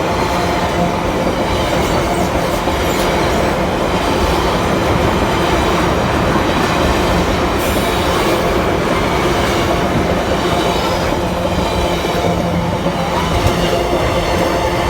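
MRS freight train passing, its wagons' steel wheels running steadily and loudly on the rails.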